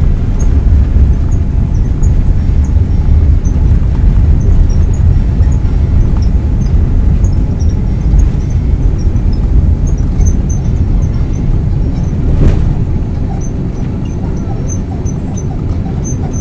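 Airliner's jet engines at takeoff thrust and the landing gear rumbling over the runway, heard from inside the cabin during the takeoff roll. There is a brief knock about twelve seconds in, and the rumble eases toward the end as the aircraft lifts off.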